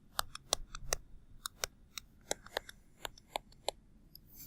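Irregular sharp clicks and taps, about fifteen, packed closely in the first second and more spaced out after that.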